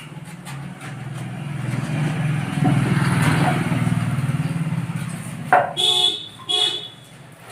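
A motor vehicle's engine running past, growing louder and then fading, with two short horn honks about two-thirds of the way through.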